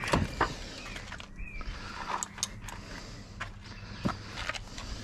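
Scattered light knocks, clicks and rustling of gear being handled and put into a car.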